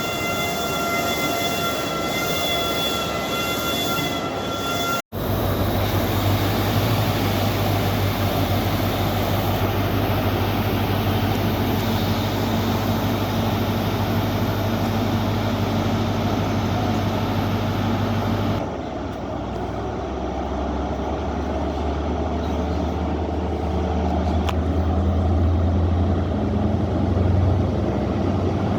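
Diesel train engine running with a steady low drone, in edited clips that cut twice. The first few seconds hold a steady high-pitched whine instead.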